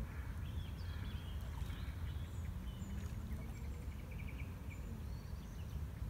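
Small birds chirping around a lakeside over a steady low outdoor rumble of wind on the microphone, with a quick run of repeated chirps about three and a half seconds in.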